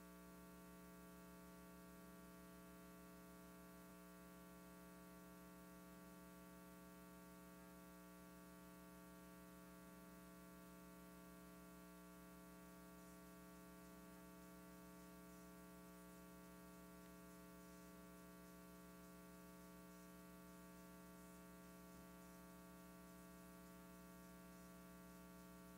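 Near silence: only a faint steady electrical hum in the broadcast audio, with a slight blip about every four seconds.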